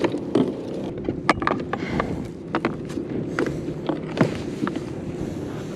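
Clicks, knocks and rustles of a landing net and a freshly caught fluke being handled aboard a kayak, over a steady low hum.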